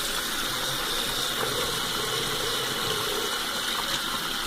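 Bathroom sink tap running steadily, the water splashing into the basin and over a phone battery held under it.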